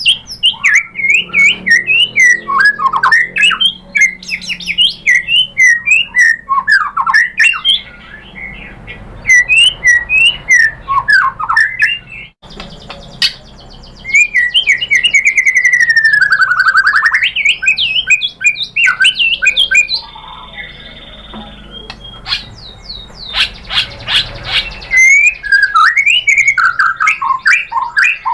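White-rumped shama singing a loud, varied song of quick chirps, whistles and fast trills, with a long swooping whistle partway through.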